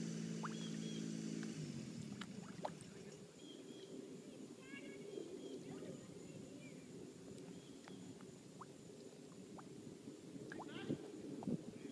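Faint outdoor background with a steady engine hum that stops about a second and a half in. After it comes a low background hiss with scattered light clicks and a few short, high chirps.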